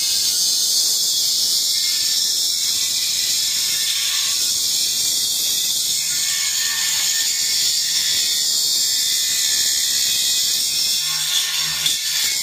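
Angle grinder cutting into the copper piping at a boiler zone valve: a steady, high, hissing grind that holds throughout.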